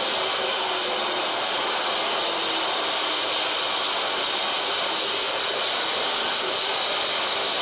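Harsh noise music played live on amplified electronics: a dense, unbroken wall of hiss and roar, heaviest in the upper-middle range, with no beat or melody.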